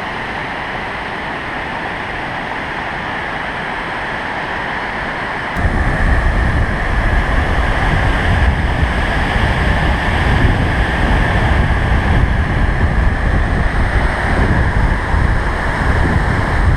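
Waterfall rushing steadily. About five and a half seconds in it jumps abruptly to a louder rush with a heavy deep rumble.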